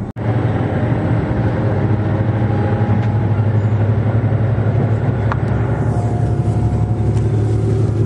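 Cabin noise of a JR Shikoku 2700-series diesel express train under way: a steady low engine drone with running noise, and faint higher tones coming and going.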